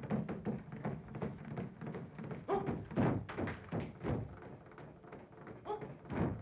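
Rhythmic drumming: a large drum beaten in quick, even strokes, several a second, as a dance accompaniment.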